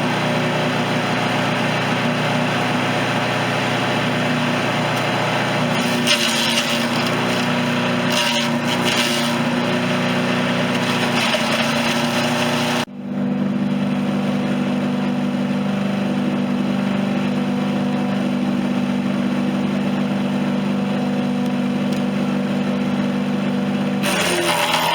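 Central Machinery chipper shredder's 212cc Predator engine running steadily, with bursts of material being chewed through the chipper about a quarter of the way in and again near the end. The sound drops out sharply for a moment about halfway, then the engine carries on.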